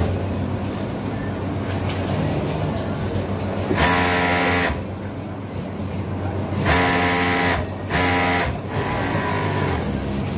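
Industrial overlock sewing machine run in three short bursts of about a second each as fabric is fed through, over a steady machine hum from the workshop floor.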